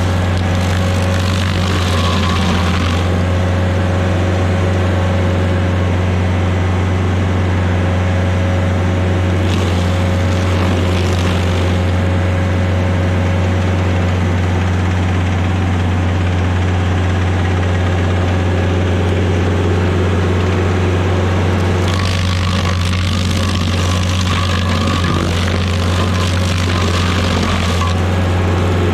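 Rayco RG50 stump grinder's engine running steadily at work speed while its cutter wheel grinds a stump and roots down into the soil. The grinding gets louder and coarser at the start, around ten seconds in, and over the last several seconds.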